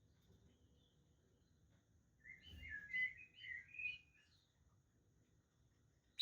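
Budgerigars chattering: a run of short, quick chirping notes lasting about two seconds, starting about two seconds in, with quiet before and after.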